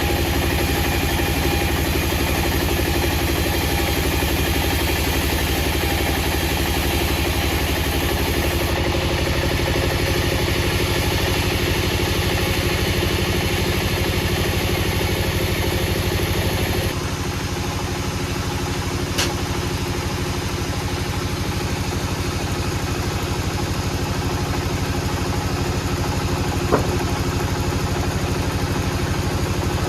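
An engine running steadily at idle, its sound changing abruptly twice, with two sharp clicks in the second half.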